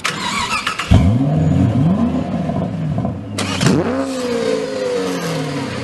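Racing car engine revving. From about a second in its pitch rises and falls several times as it climbs through the gears. Then, after a sharp burst, it sweeps up once more and slowly falls away.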